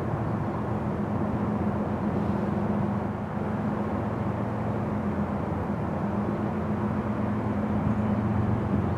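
Steady low engine drone with a layered hum, under an even rumbling haze.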